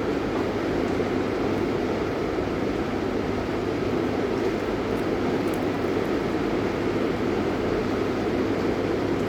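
Steady, even rain noise with no breaks, heaviest in the low-middle range.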